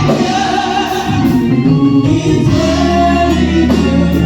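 A church group singing a gospel praise chorus together, with instrumental accompaniment holding long, steady bass notes underneath.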